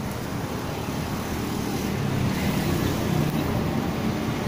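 Steady low rumble of road traffic, with a vehicle engine swelling past from about two to four seconds in.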